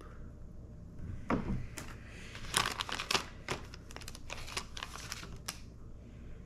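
Small plastic packaging crinkling as it is handled, a run of sharp crackles from about a second in until shortly before the end.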